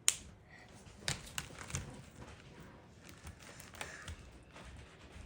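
A sharp click about a tenth of a second in, then scattered lighter taps and clicks: colouring supplies being handled and set down on a table while changing colours.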